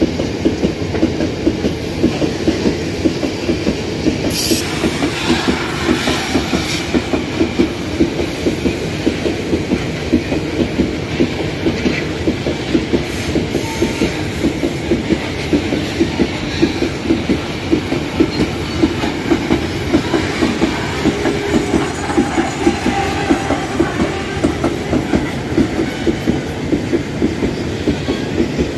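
Train passing close by: the steady rumble of railcar wheels on the rails with a regular, rhythmic clickety-clack of wheels striking the rail joints.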